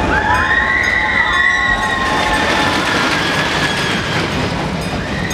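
Scenic railway train running, its wheels squealing against the rails for about four seconds over the steady rumble of the cars.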